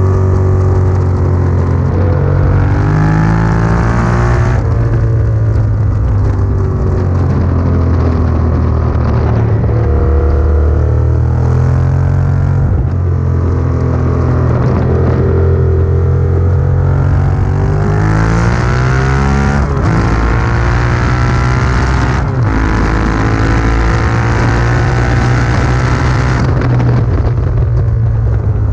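Yamaha sport bike engine at hard throttle on a racetrack, its pitch climbing in long sweeps and falling back several times as the rider changes gear and brakes for corners, over a steady low rumble.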